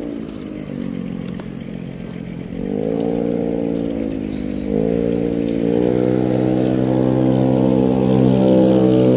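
Engine running and revving up about two and a half seconds in, dipping briefly near five seconds, then rising again and holding steady and loud.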